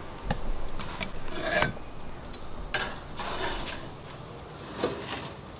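A spatula and a wooden cedar plank scraping and knocking against the grill grates as the planked salmon is lifted off, in several separate strokes.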